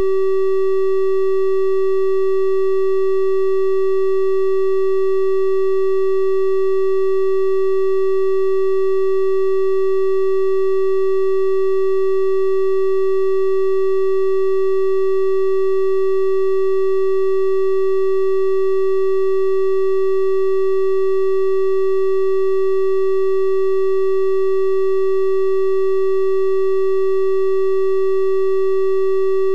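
Synthetic 384 Hz triangle-wave tone held steady and unchanging, a constant pitch with faint higher overtones.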